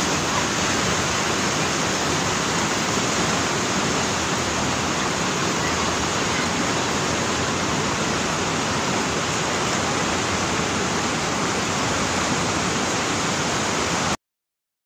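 River water rushing over rapids, a steady hiss of white water that cuts off abruptly near the end.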